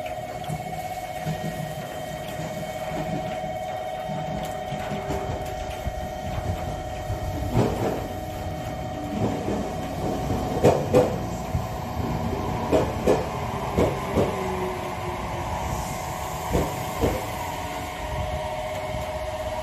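Electric train running along a station platform, its wheels knocking over the rail joints in a run of clacks that starts about a third of the way in and ends near the end. A steady tone sounds alongside.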